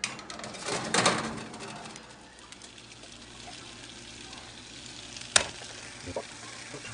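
A metal pizza pan scraping and clattering at the oven rack about a second in, then thick meat sauce pouring from a pan into a pot of spaghetti, with one sharp clank a little after five seconds.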